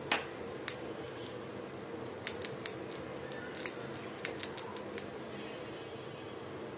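Pet rat chewing and crunching a small piece of food held in its paws, close up: irregular sharp crisp crunches, the loudest right at the start and a quicker run of them in the middle.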